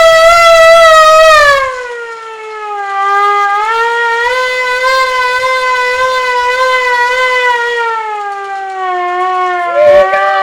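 Hand-cranked toy air raid siren wailing loudly. Its pitch falls about a second and a half in, then rises and wavers with the cranking speed. A brief knock comes near the end.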